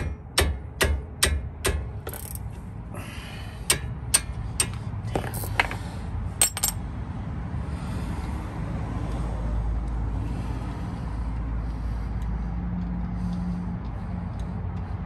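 Hammer blows on a wrench to break loose a seized brake caliper bolt, about two strikes a second, ending about two seconds in. Then a few light metal clinks as the loosened bolt is worked free, and a steady low rumble in the second half.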